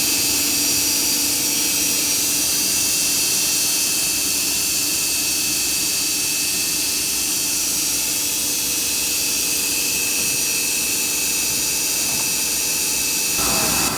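Morbidelli Author 430S CNC router running with a steady high whine and hiss, and several constant tones. Near the end a new, shifting tone comes in.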